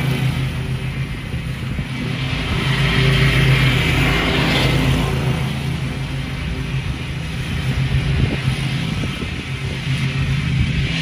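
Zero-turn riding mower's engine running steadily under load as it cuts tall, overgrown grass.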